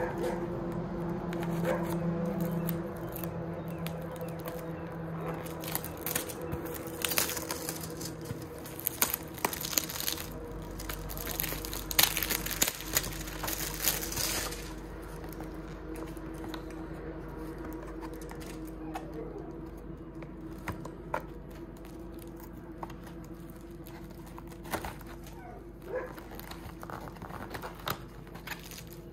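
Torch packaging being unwrapped by hand: crinkling and rustling with scattered clicks and knocks, busiest from about six to fourteen seconds in, over a faint steady hum.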